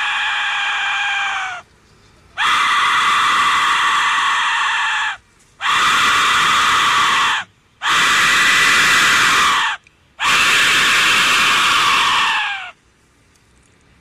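Aztec death whistle blown in long, harsh, scream-like blasts: one ends about a second and a half in, then four more follow, each two to three seconds long with brief pauses between, each dropping in pitch as it dies away.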